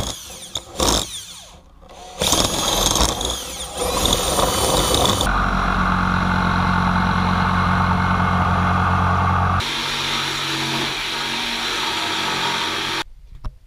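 Cordless drill boring a starter hole through plywood in short stop-start bursts, then a jigsaw cutting through the plywood from about five seconds in. The jigsaw runs steadily, shifts in tone partway through the cut, and stops shortly before the end.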